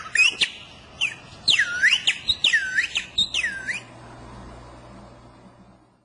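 Mouth-held bird-call whistle blown on the tongue, giving a run of quick swooping chirps that each dip down in pitch and swing back up, stopping a little past halfway.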